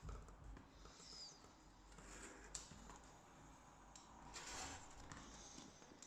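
Faint rustles and a few light clicks of packaging being handled, with a short rustle about four and a half seconds in.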